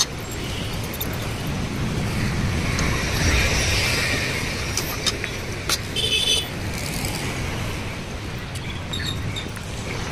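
Steady street traffic noise that swells around three to four seconds in as a vehicle passes. A short horn toot comes about six seconds in, and a few light clicks sound just before it.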